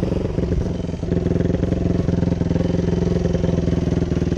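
Dirt bike engine settling into a steady idle about a second in.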